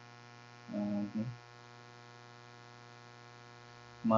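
Steady electrical mains hum with many even overtones, a buzz picked up by the recording, with a brief voiced filler sound from the narrator about a second in and speech starting near the end.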